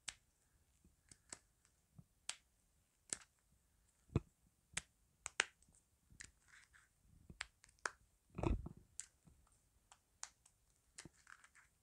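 Fingers tapping on a smartphone held right beside a lapel microphone: sparse, irregular crisp taps, with one heavier thump about eight and a half seconds in.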